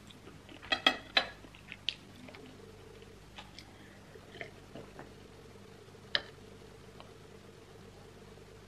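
A metal spoon and a drinking glass clinking against tableware: a quick cluster of sharp clinks about a second in, then a few lighter taps and one more sharp clink past the middle.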